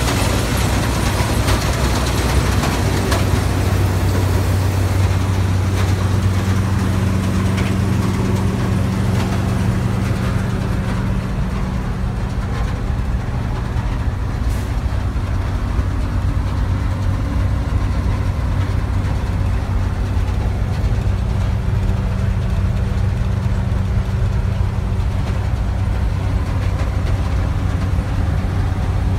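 Heavy machine's engine running at a steady speed, a low even hum, with a hiss over the first several seconds that fades away.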